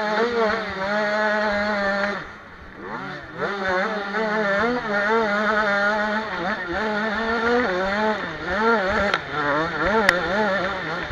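Motocross bike engine under hard riding, its pitch rising and falling as the throttle is opened and closed. About two seconds in the revs drop off briefly, then climb again. A sharp click about ten seconds in.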